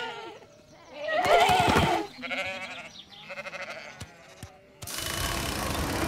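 A cartoon sheep's voiced bleats and grunts, the loudest about a second in, with quieter ones after it. From about five seconds in a steady noise without pitch sets in.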